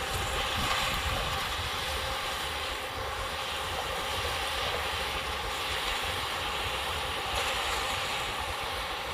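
Yanmar YH850 combine harvester running steadily at speed while harvesting rice: a constant engine drone with a hiss of threshing and machinery.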